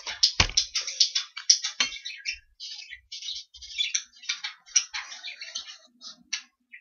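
Sharpie marker scratching across a piece of cardboard in quick short strokes as words are written out by hand, with a brief pause midway and a soft knock just after the start.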